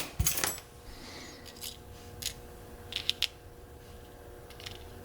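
Small metal lock parts and tools being handled on a work surface: a quick cluster of clicks just after the start, then scattered light clicks and taps, including three in quick succession about three seconds in.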